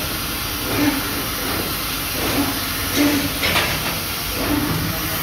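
Trumpf TubeMatic 5000 CO2 laser tube cutter cutting steel tube: a steady hiss of cutting gas and machine noise, with short low tones from the machine every second or so and one brief sharp noise about three and a half seconds in.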